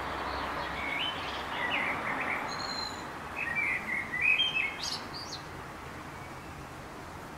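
Small songbirds chirping: a run of short high calls about a second in, then a second, louder cluster around four seconds in, over a steady background hiss.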